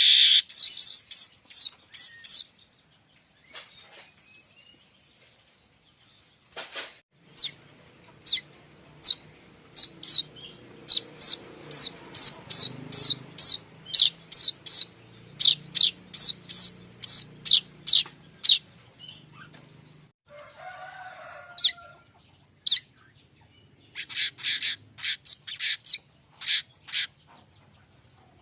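Streaked weaver (manyar kembang) calling: a long run of short, sharp, high chirps at about two a second, with pauses between runs.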